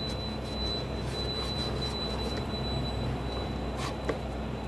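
Steady low hum with a thin high whine over it. Under it are soft rubbing sounds and a light knock near the end, as a hand spreads turmeric powder over the wooden floor of a bird nest box.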